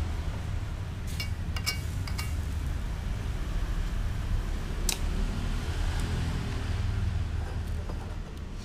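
A metal spoon clinking against an aluminium wok while stirring noodles in broth: a quick run of four or five short clinks about a second in, and another single clink about five seconds in, over a steady low rumble.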